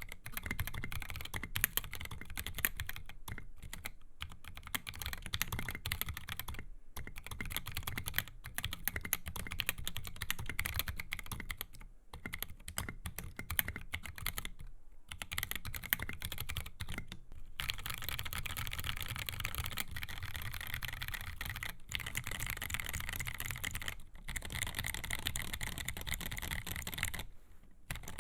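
Typing on a custom mechanical keyboard with Durock Koala 62 g tactile switches, SA-profile keycaps and lubed Everglide stabilizers in an XD84 top-mount case. It is a steady run of rapid keystroke clacks with a few short pauses, and the typing grows faster and denser about two-thirds of the way through.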